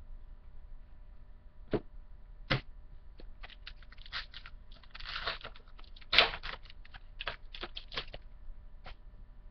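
Baseball trading cards handled and flicked through one after another: a quick run of light clicks and snaps, a few louder, with a longer rustle of cards or wrapper about five seconds in.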